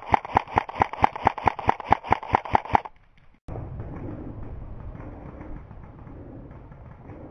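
Airsoft rifle firing a rapid, evenly spaced string of shots, about five a second, which stops abruptly about three seconds in. After a brief dropout comes a steady low rustling.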